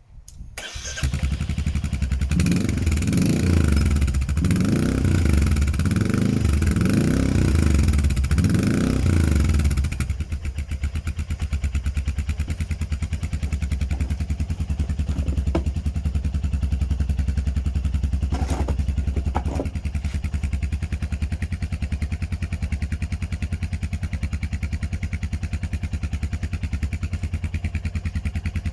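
Royal Enfield Meteor 350's single-cylinder engine, breathing through a Red Rooster straight-through exhaust with the catalytic converter deleted, starts about half a second in. It is revved about six times in the first ten seconds, then settles to a steady idle.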